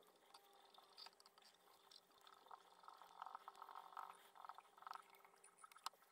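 Near silence: faint soft sounds of fly-tying thread being wound from a bobbin around a hook shank, with one small click near the end.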